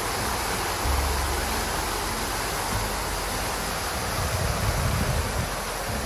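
Large fountain's jets of water splashing steadily into its basin, with a constant rush of falling water. Two brief low rumbles sound on the microphone, about a second in and again near the end.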